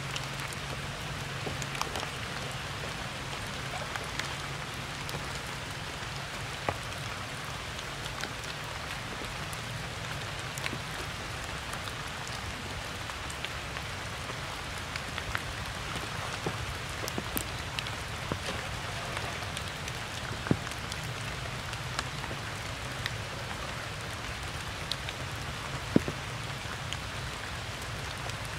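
Steady rain falling on stone, grass and puddles: an even hiss sprinkled with sharp drop ticks, the loudest about twenty and twenty-six seconds in.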